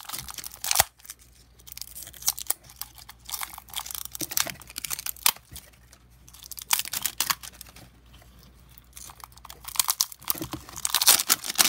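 Clear plastic film being picked, peeled and torn off a hard plastic toy, crinkling and crackling in irregular spurts.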